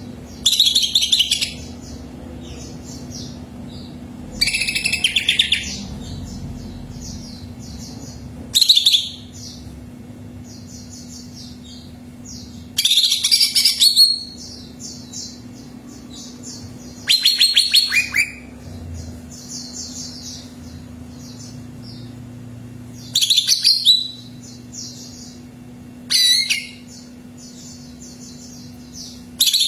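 Cucak ijo (green leafbird) singing: loud bursts of rapid, fast-repeated high notes every few seconds, with fainter continuous chirping between them and a steady low hum underneath.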